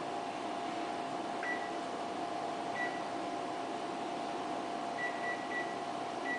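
Ultrasound scanner's steady hum with a held tone, and six short high beeps from its console, the first about a second and a half in and three in quick succession about five seconds in.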